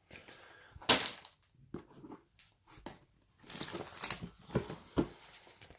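Snack packages being handled: plastic wrappers crinkling and rustling, with a sharp knock about a second in and busier rustling in the second half.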